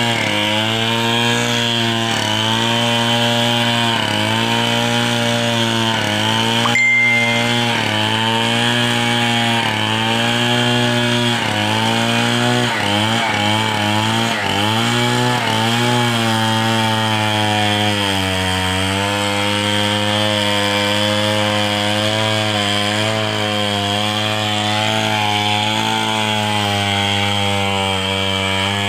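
Two-stroke chainsaw running under load as it cuts through a log, its engine pitch repeatedly dipping and recovering every second or two.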